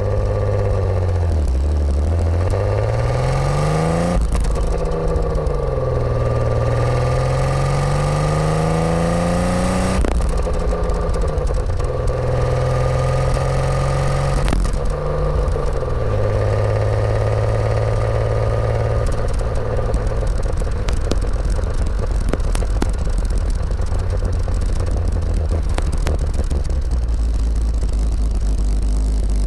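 BMW E36 328is straight-six converted to rotary valves, heard close to the exhaust while driving. The revs climb and drop sharply about four and ten seconds in, as at upshifts, then hold fairly steady for the rest.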